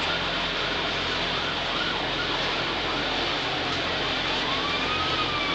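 A steady hiss, with a faint siren wailing slowly up and down behind it.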